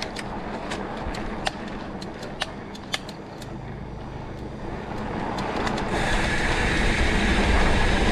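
Mountain bike rolling over a dry dirt singletrack: a rumbling tyre-and-trail noise with scattered sharp clicks and knocks from the bike over the first few seconds. The rushing noise grows steadily louder from about five seconds in.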